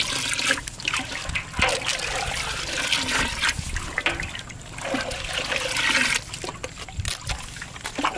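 Liquid pouring and trickling, swelling and fading in strength, with a few light knocks.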